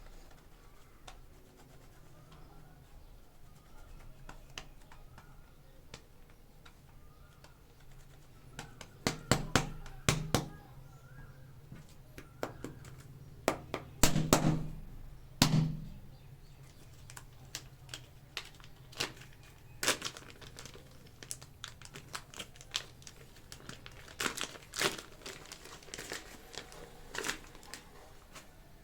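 Close-up handling of clay packs: plastic wrapping crinkling, with irregular sharp clicks and taps. The loudest clusters come about nine seconds in and again around fourteen to fifteen seconds in, with scattered clicks after that.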